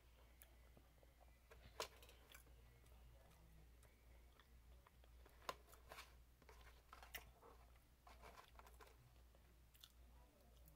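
Faint chewing and crunching of fried chicken nuggets, a handful of soft, scattered crunches and mouth clicks over a low steady hum.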